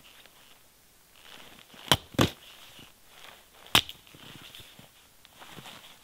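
Hatchet chopping wood on a stump chopping block: three sharp chops, two in quick succession about two seconds in and one near four seconds.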